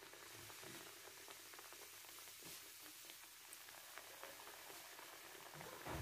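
Faint sizzling of beignet dough frying in hot oil in a pan: a steady hiss with many small crackles, and a soft knock near the end.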